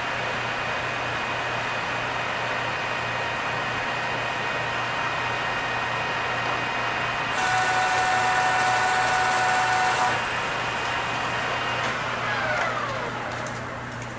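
Engine lathe taking a power-fed cut in 6061 aluminium with a high-speed-steel tool: a steady machine whine, louder and hissier with extra tones from about 7 to 10 seconds. Near the end the whine slides down in pitch. At this 10-thou feed the chip is coming off stringy instead of breaking.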